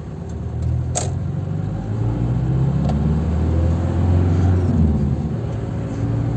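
Isuzu Panther diesel engine heard from inside the cabin, pulling under throttle with its note rising and getting louder, plus a single sharp click about a second in. The pull is sluggish and dragging, which the owner contrasts with the engine's punchy pull when it runs well; he has not found the cause.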